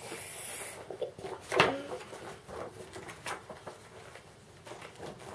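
Paper rustling and crackling as a large folded instruction sheet is opened out and handled, with a short louder sound about a second and a half in and a few faint ticks later.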